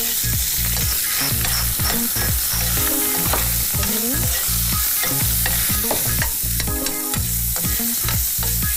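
Chopped shrimp sizzling steadily in very hot oil in a frying pan, with a spoon stirring and scraping them around the pan. A low rhythmic pulse runs underneath.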